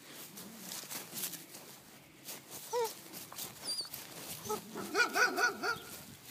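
Bernese Mountain Dog puppy giving one short whine about three seconds in, then a quick run of yips and whines near the end, over the crunch and rustle of dry grass.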